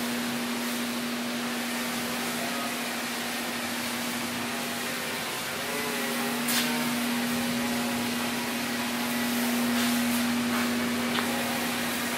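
Steady hum of running machinery: one constant low tone over an even hiss, with a few faint clicks.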